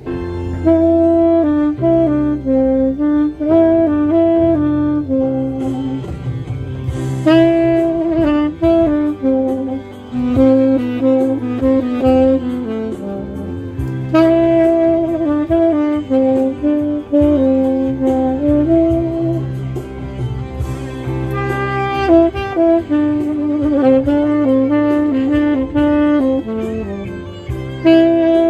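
Saxophone playing a slow melody of held and moving notes, with low sustained bass notes underneath.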